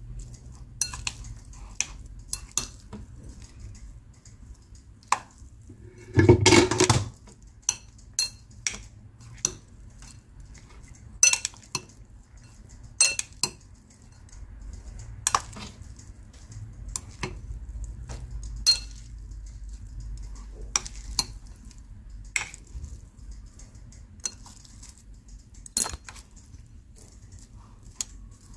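Utensils clinking and scraping against a bowl of instant fried noodles, in scattered sharp clinks, with a longer, louder clatter about six seconds in.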